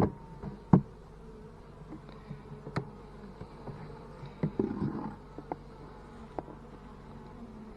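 Italian honey bees buzzing steadily around an open hive. A few sharp clicks and knocks sound over the buzz, with a short cluster of them a little past the middle.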